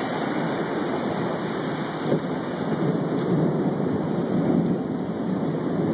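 Heavy rain pouring steadily with thunder rumbling through it, the rumble swelling about three to five seconds in. A brief sharp crack about two seconds in.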